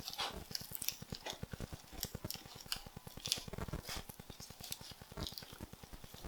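Seasoned rice being pressed and spread by hand over a sheet of dried seaweed on a rolling mat: a run of small, irregular crackles and soft taps.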